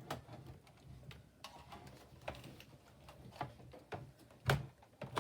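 Faint, scattered clicks and knocks of something being handled, with a louder knock about four and a half seconds in.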